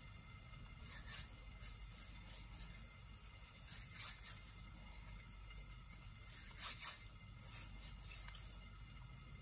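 Faint rubbing of fingers together to clean clinging flour and wheat dough off them, in a few short rustles.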